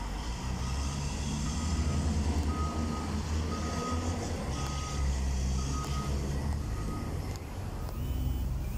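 A heavy vehicle's reversing alarm beeping about once a second over the low, steady rumble of a diesel engine.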